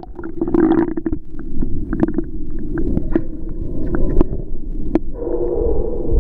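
Dog paddling in a swimming pool, heard through a camera held underwater: a muffled low rumble of churning water with scattered small clicks and knocks.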